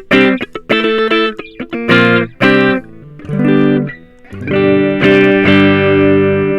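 Ibanez GAX30 electric guitar, fitted with a Belcat neck pickup, played through effects pedals. It plays a run of short, choppy chord stabs, dips quieter for about a second, then strikes a chord that rings on from about four and a half seconds in.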